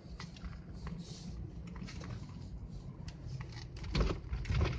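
Low steady rumble of a car driving over a snow-covered, unploughed road, heard from inside the cabin, with scattered light clicks and two heavier knocks about four seconds in.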